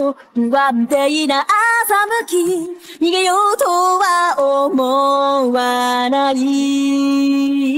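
Isolated female lead vocal of an anime opening song with the instruments stripped out, singing a run of short notes and then holding one long note for about the last three seconds.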